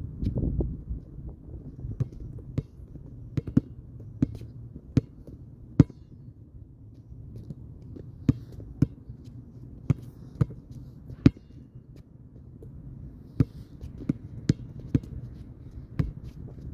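Basketball bouncing over and over, a series of sharp, separate smacks at an uneven pace, some in quick pairs or runs, with a few clearly louder than the rest.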